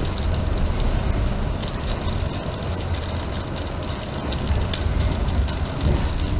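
New York City subway D train running on the tracks: a steady low rumble of wheels on rail with frequent clicks and rattles.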